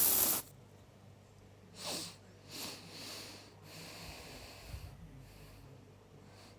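A short hiss of aerosol deodorant spray, followed by a few sniffs and breaths through the nose.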